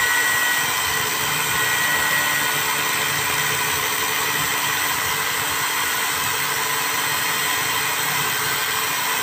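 DeWalt angle grinder with a cut-off disc cutting steadily through a bicycle crank arm: a continuous whine over harsh grinding noise. The crank arm is being cut off because it is stuck and cannot be removed.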